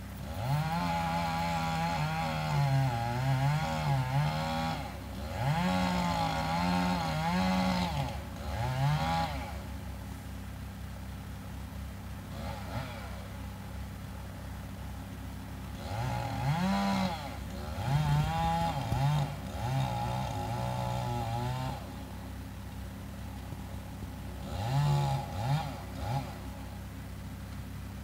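Two-stroke chainsaw revving in bursts while cutting into the trunk of a dead maple, its pitch dipping and rising under load. There are three runs in the first nine seconds, a longer spell about halfway through and a short one near the end. A steady low engine drone runs underneath.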